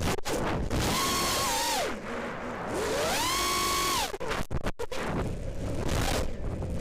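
FPV quadcopter's brushless motors and propellers whining, the pitch climbing to a held high whine and then falling away as the throttle is punched and eased, twice, over a steady rushing noise. The sound drops out briefly a few times.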